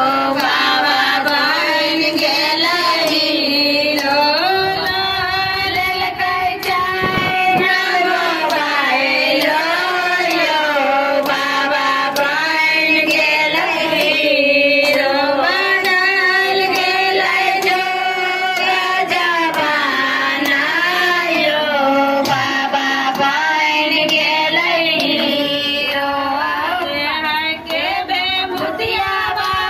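A group of women singing a Shiva devotional folk song (Shiv geet) together, with hand claps keeping time.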